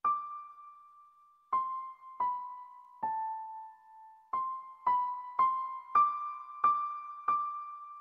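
Solo piano playing a slow melody based on Gregorian chant, one high note at a time, each struck and left to ring out. It enters out of silence, and after the first few spaced-out notes the notes come more quickly.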